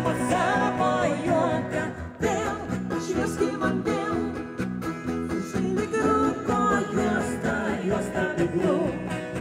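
Live band performing through stage PA speakers: a singer's vocals over acoustic guitars and an electric guitar, with a steady bass line underneath.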